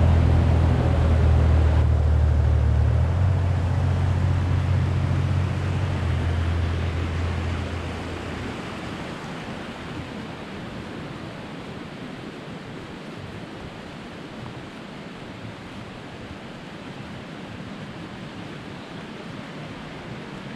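Mountain stream rushing steadily, with a loud, low motor drone over it that shifts pitch a few times and fades out about eight seconds in.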